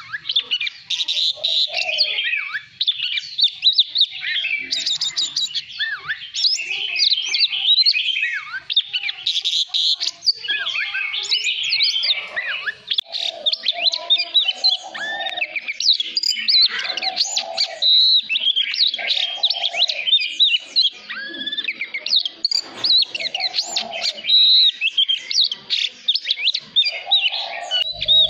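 Oriental magpie-robin singing a long, continuous, varied song of quick whistles, trills and chattering notes with hardly a break.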